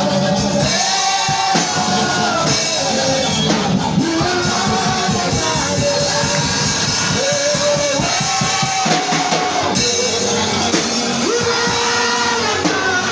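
Worship music: a sung melody with guitar and a drum kit keeping a steady beat.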